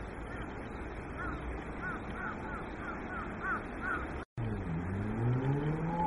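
A bird calling a run of short, arched chirps, about two a second. After a brief dropout about four seconds in, a vehicle engine rises in pitch as it speeds up.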